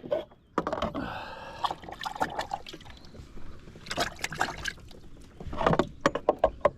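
Clicks and knocks of fishing tackle being handled in a kayak, with light water sounds.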